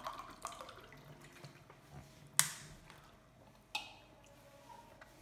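Fingers squishing and mixing cooked rice on a plate with faint wet sounds, broken by two sharp clicks, the louder one a little before halfway and a smaller one about a second later.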